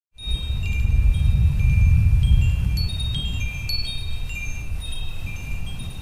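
Wind chimes tinkling: many high, ringing notes that start and overlap at random, over a low steady rumble that is strongest in the first couple of seconds.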